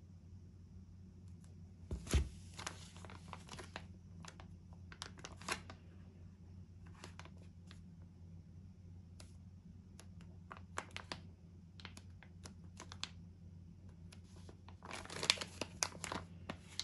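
Plastic food packaging, a stand-up pouch of pancake mix, crinkling and crackling as it is handled and turned over: in bursts, with a soft thump about two seconds in, scattered single crackles through the middle, and a dense stretch of crinkling near the end.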